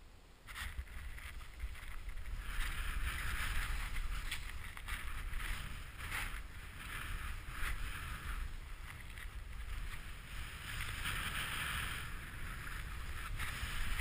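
Skis turning through deep powder snow: a rushing hiss that swells with each turn, several times, over a low wind rumble on the microphone, with a few light clicks.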